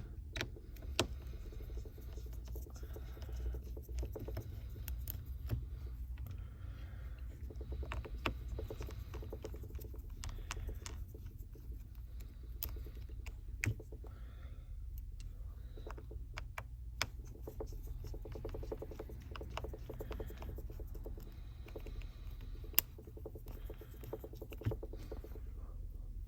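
Scattered small clicks and taps of hand tools on a smartphone's internal parts during disassembly, irregular and sharp, over a steady low hum.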